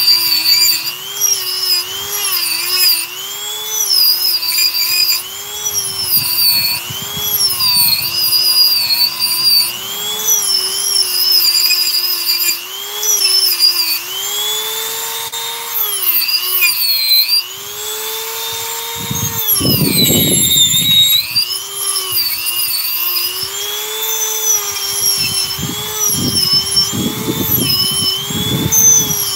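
Handheld Dremel rotary tool running at high speed as its bit carves into a small wooden figure; the whine keeps sagging and recovering in pitch as the bit bites into the wood and eases off, with a rougher grinding stretch about twenty seconds in.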